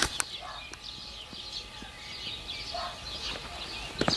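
Small birds chirping and singing continuously, with a lower, deeper call about three seconds in and a sharp click at the very start.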